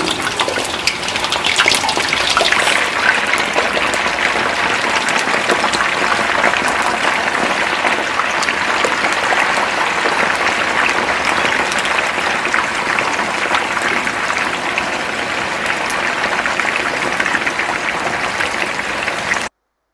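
Raw yam sticks deep-frying in hot oil in a pan: a steady sizzle dense with crackles and pops as the wet pieces hit the oil and more are dropped in. It cuts off suddenly near the end.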